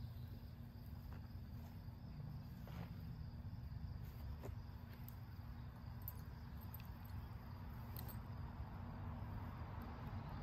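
Crickets chirring steadily, a thin high-pitched drone, over a constant low rumble, with a few faint scattered clicks and rustles.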